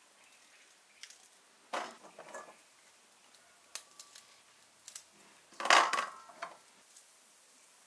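Chestnuts clattering and knocking against metal and enamel bowls as they are handled. There are a few scattered clicks, a small clatter about two seconds in, and the loudest clatter near the end, which has a short metallic ring.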